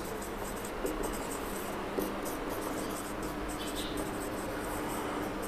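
Marker pen writing on a whiteboard: many short scratchy strokes over a steady hiss.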